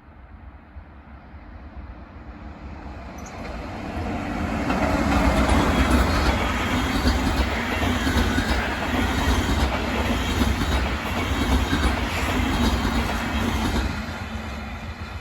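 Flixtrain passenger train passing as it branches off over the junction points. It grows louder over the first few seconds, runs at full level through the middle and fades toward the end.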